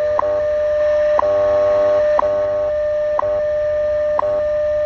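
Tecsun PL-990x shortwave receiver playing the WWV/WWVH time-signal broadcast on 15 MHz: a steady audio tone broken by a short tick once every second, marking the seconds.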